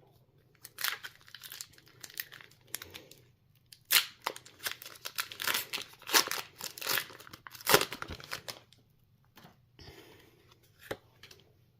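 A foil Pokémon booster-pack wrapper being torn open and crinkled in the hands: a run of crackly tearing and crumpling noises, loudest about four seconds in and again near eight seconds, then a few light rustles and a click.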